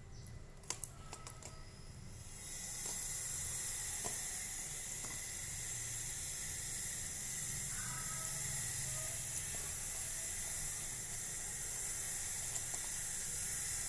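A steady high hiss sets in about two seconds in and holds on evenly. Beneath it are a few small clicks and wet handling sounds from hands cleaning small squid in an aluminium bowl.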